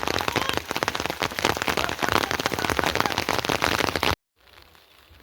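Heavy rain pattering densely on a surface, a fast, close spatter of drops that cuts off abruptly about four seconds in, leaving a much quieter stretch.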